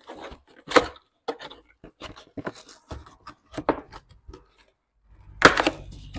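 Cardboard filter box being opened by hand: a run of short scrapes, taps and rustles as the box is tipped and worked open, with a louder burst of rustling about five and a half seconds in.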